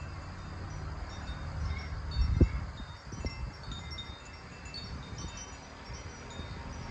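Wind chimes ringing, scattered high clear tones over a low rumble of wind on the microphone, with a dull thump about two and a half seconds in and a lighter one just after.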